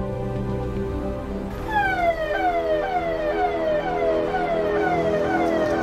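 A siren starting about one and a half seconds in, its pitch sweeping down over and over, about twice a second. Underneath, background music holds sustained notes.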